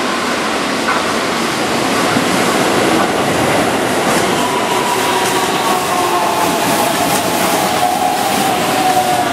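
Keihan 10000 series electric commuter train running past at close range, with steady rolling noise from its wheels on the rails. From about four seconds in, a whine slowly falls in pitch.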